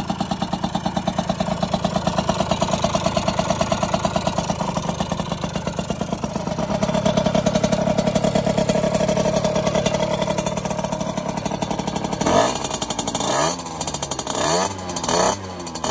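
Freshly rebuilt Derbi Euro 3 50cc liquid-cooled two-stroke single running on its first start after the rebuild, with a steady, fast-pulsing exhaust note. In the last few seconds it is revved in several short throttle blips that rise and fall.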